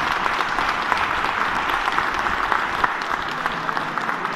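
A roomful of people applauding steadily: many hands clapping at once in a large hall.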